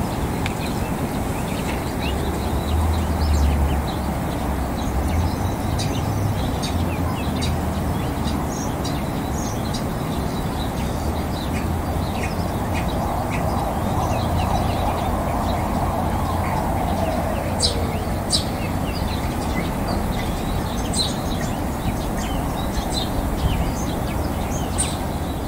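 Mallard ducklings peeping: many short, high chirps scattered throughout, over a steady outdoor background with a low rumble. A faint falling drone passes in the middle.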